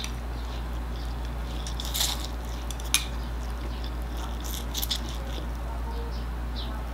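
A person slurping and chewing chilli instant noodles eaten with chopsticks: a few short wet mouth sounds, the clearest about two and three seconds in and a small cluster near five seconds, over a steady low hum.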